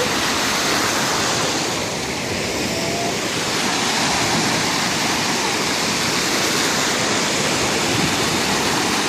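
Steady rush of ocean surf washing onto a sandy beach, an even wash of water noise with no clear breaks.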